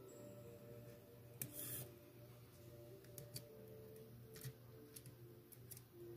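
Faint background music over a low hum, with a brief scrape about one and a half seconds in and a few light clicks from small parts being handled on a model locomotive chassis.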